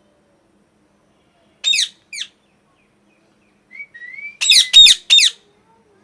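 A parrot calling in sharp, downward-sliding screeches: two short ones about two seconds in, then a soft rising whistle, then three loud screeches in quick succession near the end.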